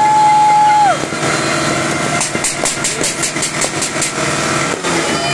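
New Year's Eve fireworks din. A horn blows one steady note for about a second near the start, sliding down in pitch as it stops. Then comes a quick, evenly spaced run of sharp crackles from fireworks, over a continuous background noise.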